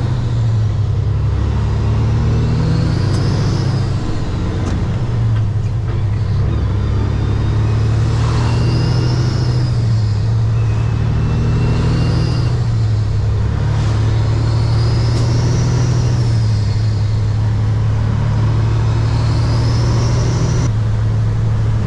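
Kenworth W900 semi truck's diesel engine droning steadily from inside the cab while driving, with a fainter high whistle that rises and falls every few seconds.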